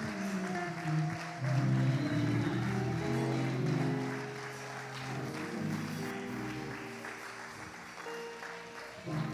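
Instrumental church music with held bass and chord notes, over congregation applause.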